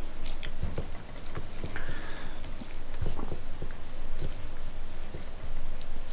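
A hand rubbing and patting olive oil into a raw ribeye steak on a wooden chopping board: irregular soft, wet slaps and squishes.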